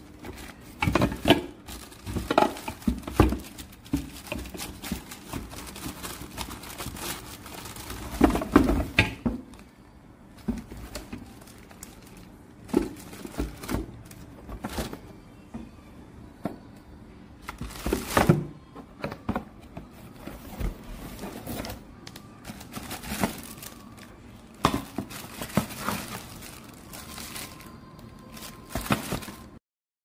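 Plastic packaging bags crinkling and rustling, with irregular knocks and thuds of the packed vacuum-cleaner parts against the cardboard box as they are handled; the sound cuts off abruptly near the end.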